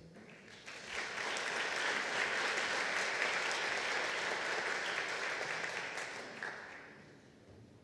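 Audience applauding. The clapping builds up within the first second, holds steady, and dies away near the end.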